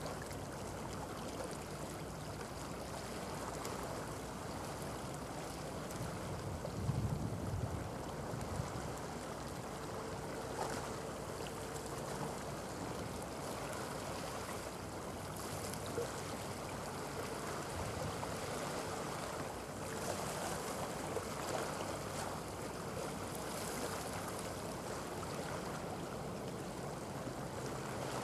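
Seaside ambience: water washing against shoreline rocks with wind, over a faint, steady low hum of distant ship engines. A gust of wind hits the microphone about seven seconds in.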